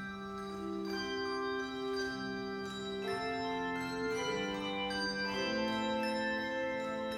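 Handbell choir ringing chords of a slow melody. Each struck bell rings on while new notes come in about once a second.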